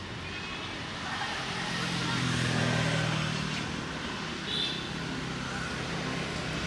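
A motor vehicle engine running, a low steady hum that comes up about a second and a half in, over a steady outdoor background noise. A brief high chirp about four and a half seconds in.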